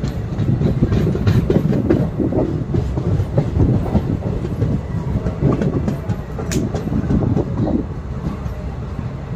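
DEMU passenger train running, its wheels rumbling and clacking over the rail joints, with a sharp click a little past the middle.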